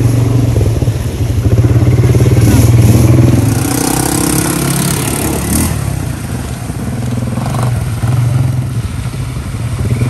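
ATV engine running as it is ridden, getting louder and rising in pitch between about one and three seconds in, then easing off. A rushing hiss comes in around four to five seconds in.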